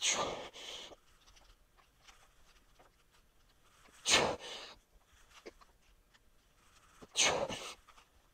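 A man breathing out forcefully through a set of dumbbell squeeze presses: three sharp breaths about three to four seconds apart, each followed by a softer breath.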